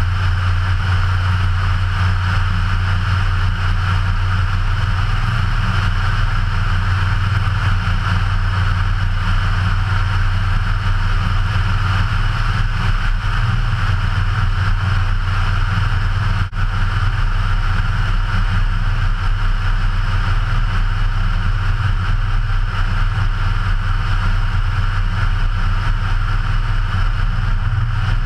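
Ikarus C42 ultralight's 100 hp Rotax 912 four-cylinder engine and propeller droning steadily in cruise flight.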